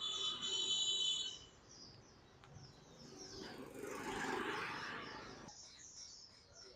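Small birds chirping over and over in quick high notes, with a brief steady high-pitched tone in the first second and a rustling noise from about three seconds in that cuts off suddenly.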